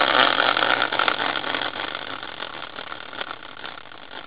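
Prize wheel made from a large caster wheel spinning freely after a hand spin: a steady whirring rush that slowly fades as the wheel loses speed.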